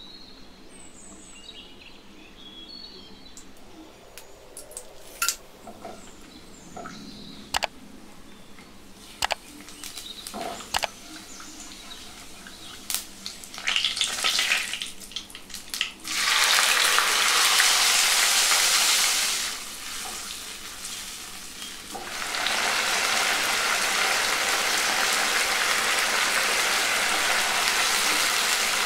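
Whole spices frying in hot oil in a nonstick kadhai: a low sizzle with scattered sharp pops at first. A little over halfway through, a loud steady sizzle starts, eases for a couple of seconds, then returns loud and steady while a frothy mixture is stirred with a silicone spatula.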